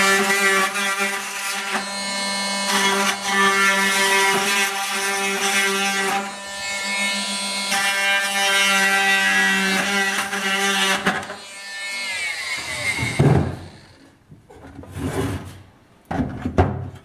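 Rockwell Sonicrafter oscillating multi-tool running and cutting slots in a plastic bucket, a steady buzzing whine that wavers with the load, then switched off and falling in pitch as it winds down about eleven seconds in. A few knocks and handling sounds follow as the metal float-valve box is set on the bucket.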